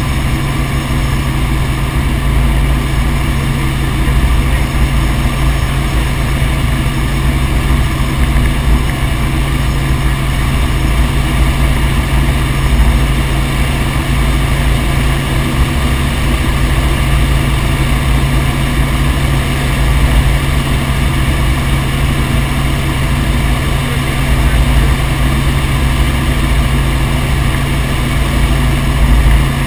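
Helicopter in flight: steady, loud rotor and engine noise that holds level throughout, with a constant low hum underneath.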